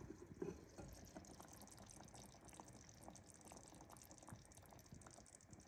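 Very faint bubbling of beef stew simmering in a stovetop pot, with a couple of soft knocks near the start as the glass lid is handled.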